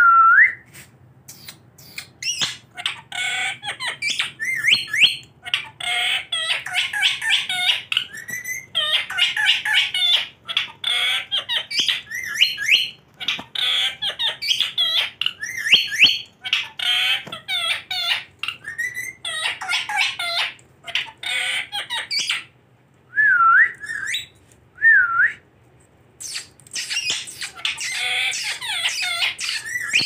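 Caged rose-ringed parakeets (Indian ringnecks) giving rapid, overlapping calls almost without a break. About two-thirds of the way through there is a short lull with two single calls that dip and then rise in pitch. The rapid calling resumes near the end.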